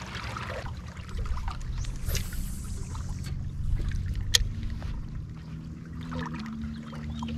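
Water lapping against a small inflatable fishing pontoon over a low steady rumble, with a brief hiss about two seconds in and one sharp click just after four seconds, the loudest moment.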